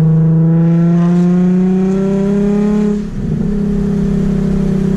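Nissan V6 through a Tomei titanium exhaust and ISR Y-pipe, accelerating hard with the exhaust note rising steadily in pitch. About three seconds in, an upshift drops the pitch and the engine pulls on at a steadier note.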